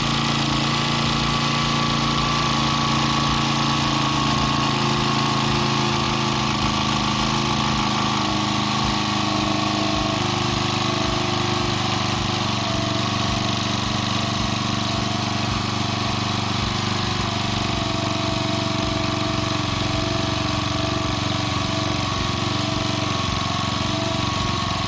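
Small four-stroke generator engine running steadily, its note shifting slightly about eight to ten seconds in.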